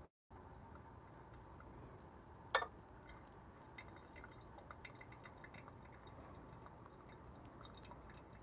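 Faint stream of water poured from a gooseneck kettle onto coffee grounds in a paper-filtered pour-over dripper, with soft pattering and small ticks. A single sharp click about two and a half seconds in.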